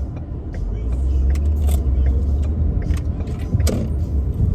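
Car engine and road rumble heard from inside the cabin as the car drives and turns in, strongest for the first three seconds and then easing, with scattered light clicks and rattles.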